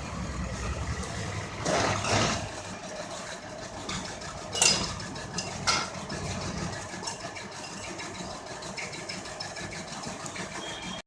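Milling machine running steadily, with a few sharp clicks and knocks, the loudest about four and a half seconds in.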